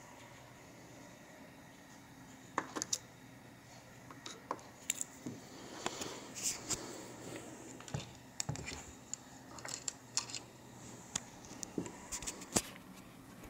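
Irregular light clicks, taps and rustles of handling, scattered through, with the sharpest click near the end.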